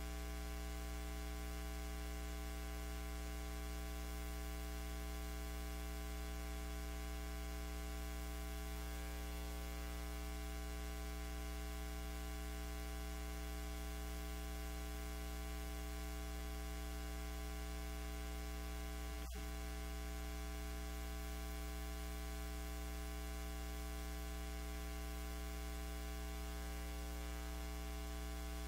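Steady electrical hum and buzz with a hiss of static, a fault on the recording that covers everything else. A faint click comes about two-thirds of the way through.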